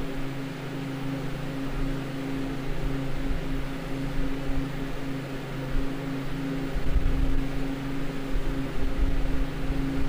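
Walk-in freezer's Bohn evaporator unit running: its fans give a steady hum of a few low tones over an even airy hiss, with an uneven low rumble underneath.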